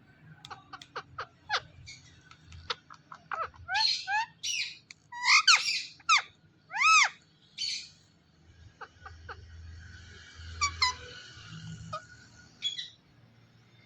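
Indian ringneck (rose-ringed) parakeet chirping and squeaking: a run of short high chirps, then several loud arched whistled calls in the middle, and softer chatter near the end.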